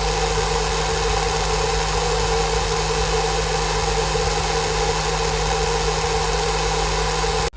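Small DC motor of a homemade vacuum cleaner running steadily with a constant whirring hum, cut off abruptly near the end.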